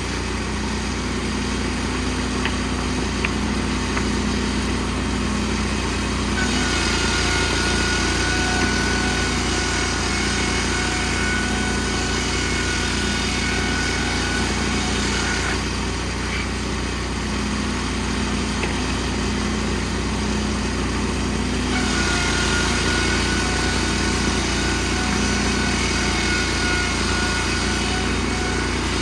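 Wood-Mizer portable band sawmill running steadily while sawing boards from a log. Twice a higher whine with more hiss joins in for several seconds, then drops back to the plainer running sound.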